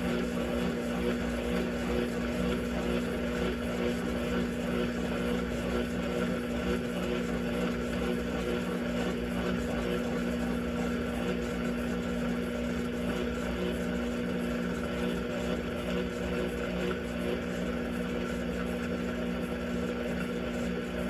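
Electrolux LTC15 top-loading washing machine running with a steady, unbroken motor hum.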